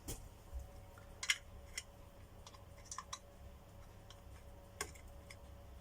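Scattered light clicks and taps of hand tools and small parts being handled, about one a second and irregular, over a faint steady hum.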